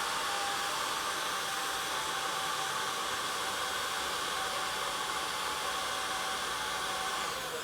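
Metabo HG 18 LTX 500 cordless hot air gun running steadily, its fan blowing an even rush of air with a faint whine, while heat-shrink tubing is shrunk. The sound starts and stops abruptly and tapers slightly near the end.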